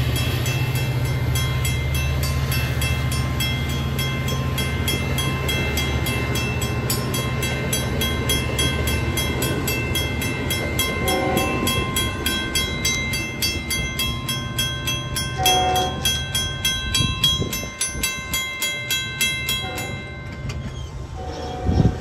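A train passing close by, with a steady low rumble and a fast, even clatter that die away near the end. A few short, higher horn-like tones sound partway through and again just before the end.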